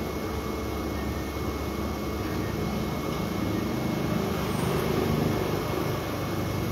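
Steady street-traffic drone from passing engines, growing a little louder about four seconds in as a vehicle goes by, then easing off.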